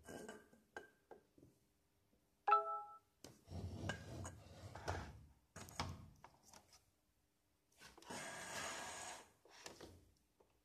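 Handling noise from an NEC LT25 projector's plastic case being turned over and moved on a desk: bumps and rubbing, with a short ringing clink a couple of seconds in. Near the end comes a scrape of about a second and a half as it slides.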